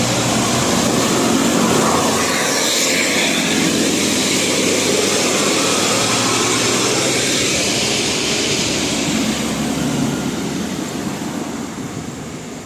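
Heavy bus engine and road noise as a bus drives past, a steady loud rush with no horn tune, fading near the end.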